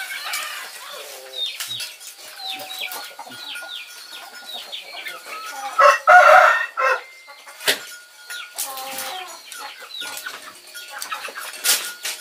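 Chickens calling: a run of short, high peeps that fall in pitch, with a louder clucking call about six seconds in. A sharp click sounds near the end.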